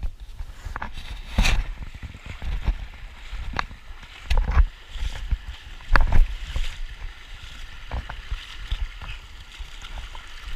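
Water sloshing and splashing around a person wading waist-deep upstream through a river, with irregular heavier splashes among the steady rush of the flowing water.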